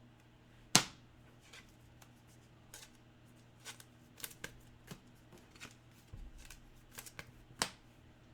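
Football trading cards being handled and flipped through by hand: a run of light card flicks and taps, the sharpest about a second in and again near the end, over a faint steady hum.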